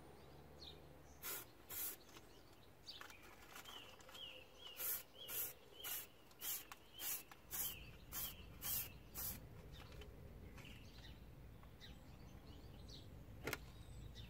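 Aerosol can of grey primer spraying in short hissing bursts: two at first, then a quick run of about ten, roughly two a second, into a wheel arch.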